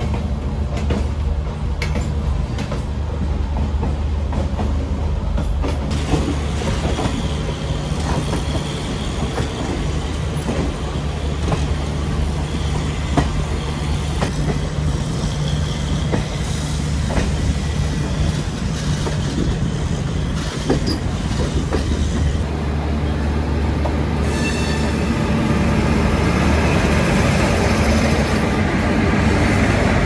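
An old ICF passenger coach rolling over the tracks, heard through its open door: a steady low rumble with irregular wheel clicks over rail joints and points. In the last third a louder hiss joins and the sound grows louder.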